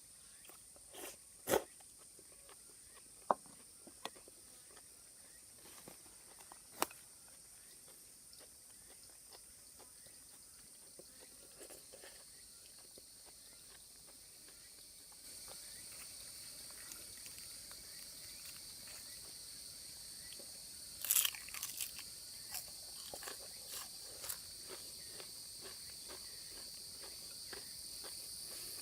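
Scattered crunches and clicks of someone eating, biting into crisp freshly fried tempura, over a steady high insect chorus that grows louder about halfway through.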